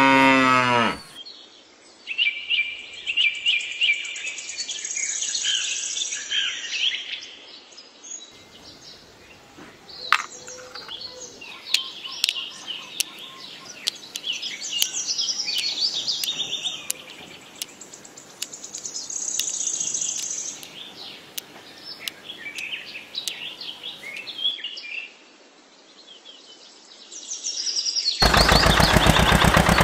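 Birds chirping and singing, with the end of a cow's moo fading out about a second in. A few faint clicks come in the middle, and a loud, rhythmic engine sound starts near the end.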